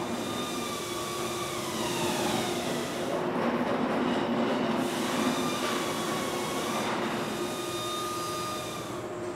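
Machinery running with a steady hum and hiss, and a motor whine that slides down in pitch over the first few seconds, then rises again about five to seven seconds in.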